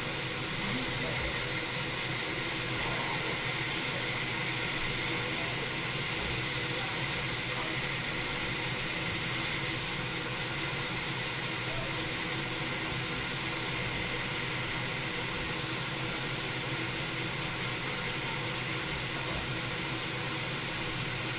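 Hot air rework station blowing a steady hiss of hot air while reflowing the solder under a laptop motherboard connector.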